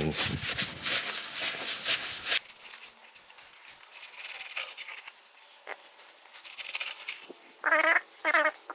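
A rag wiping the oiled cast-iron dovetail ways of a Bridgeport milling machine, in quick rubbing strokes for about the first two seconds, then fainter. Near the end comes a brief pitched, voice-like sound.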